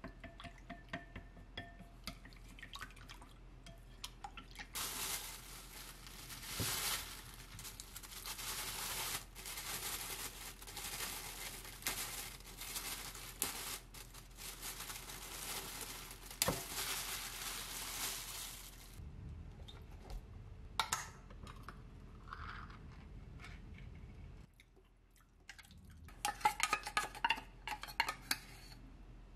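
Chopsticks beating egg in a ceramic bowl, clicking against its sides. Then a thin plastic bag crinkles for a long stretch as it is worked over the bowl. Near the end comes a quick run of clinks against a glass mixing bowl.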